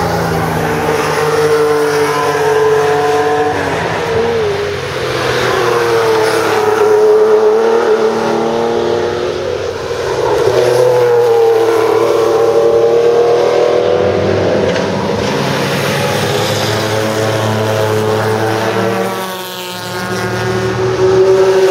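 Porsche racing car engines at full throttle on track, several cars in turn, each pitch rising with the revs and falling at upshifts and as it passes. Loudness dips briefly between cars.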